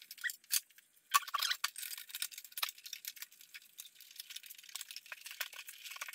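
Hands stuffing foam into a plastic heater box: irregular scratchy rustling with small clicks and taps, quiet at first and busier from about a second in.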